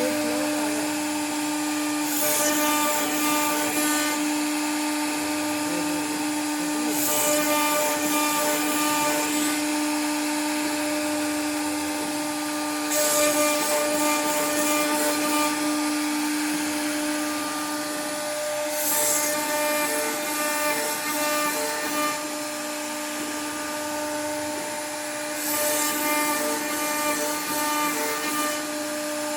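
CNC router spindle running with a steady high whine while its bit carves wood. Every five or six seconds a hissy cutting rasp rises for two or three seconds as the bit makes a pass.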